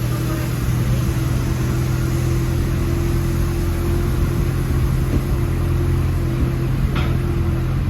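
An engine running at a steady speed: an even low hum with a held tone over a constant wash of noise.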